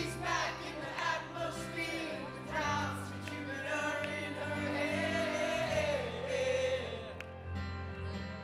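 Live band music with singing over steady sustained chords, including one long wavering held note in the middle.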